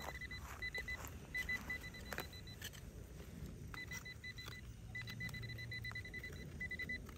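A metal detector's high beeping tone, stuttering on and off and holding steadier near the end, over scattered soft knocks and scrapes of a hand digging tool working into clay soil.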